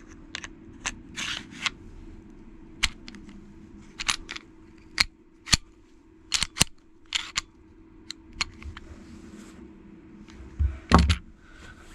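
Metallic clicks, clacks and short scrapes of a Springfield XD-S .45 pistol being put back together by hand, its barrel, recoil spring and slide fitted onto the frame. A dozen or so separate sharp clicks, with one louder clack near the end.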